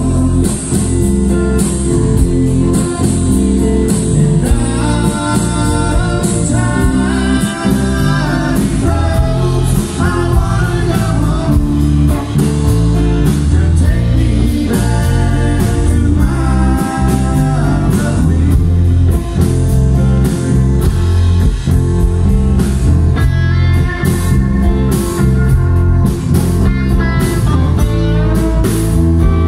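Live rock band playing: a sung vocal line over acoustic and electric guitars, bass and a drum kit with a steady beat.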